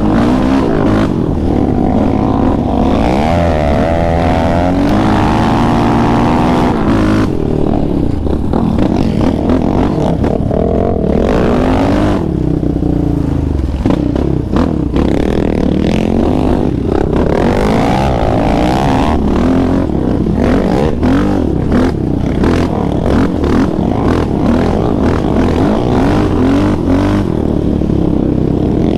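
A 2019 Yamaha Raptor 700R's single-cylinder four-stroke engine, fitted with an aftermarket Monster exhaust, heard close up from the rider's seat while the quad is ridden on a dirt trail. The engine revs up and eases off again and again, its pitch rising and falling with the throttle.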